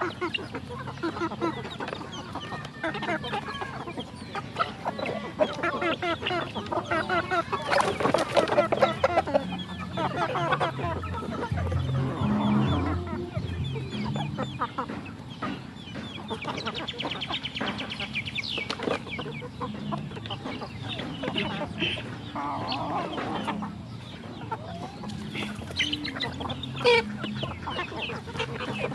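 A flock of chickens clucking continuously as they crowd around a basket and eat.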